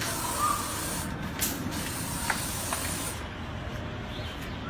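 Aerosol spray can hissing in a long continuous burst that cuts off about three seconds in, with a few light knocks.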